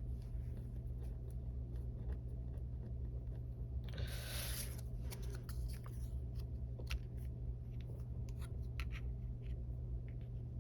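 Card-making supplies handled on a desk: a short rustle or scrape of paper about four seconds in, then a run of light taps and clicks, over a steady low hum.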